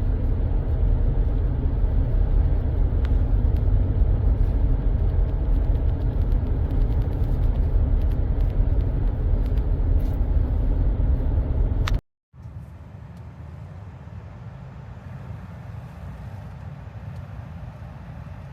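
Steady low rumble of a moving car. About two-thirds of the way through it cuts off abruptly and a quieter low rumble takes over.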